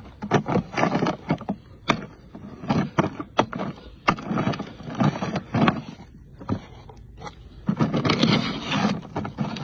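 Paper wrapping torn and crinkled by hand off the top of a fireworks cake, in a run of short rips and rustles, with a longer, denser stretch of tearing near the end.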